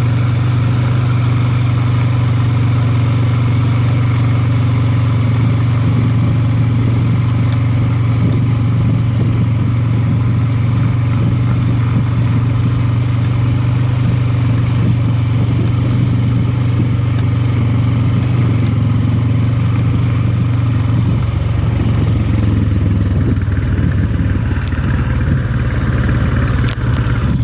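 ATV engine running steadily at a constant pace, its note shifting about 21 seconds in.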